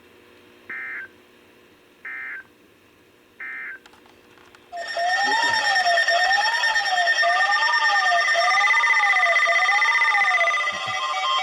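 Emergency Alert System broadcast audio: three short digital data bursts about a second and a half apart, the end-of-message code that closes the warning. Then a loud electronic alert tone starts, a pitch warbling up and down about once a second over steady held tones, switching to pulsing beeps near the end.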